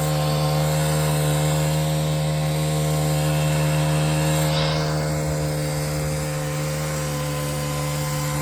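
A vehicle's engine running steadily at high revs while pushing through deep snow, easing off slightly about halfway through.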